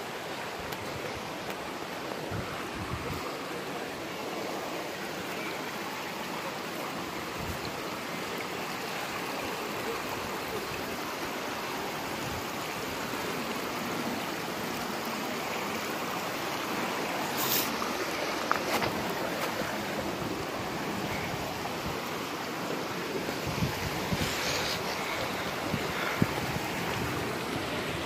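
Shallow creek water running and trickling steadily over and between boulders, with a few brief clicks past the middle.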